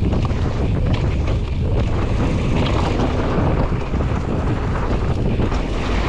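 Wind buffeting the microphone and mountain bike tyres rumbling over a loose gravel and dirt track while riding downhill, with scattered clicks and rattles from the bike over the rough ground.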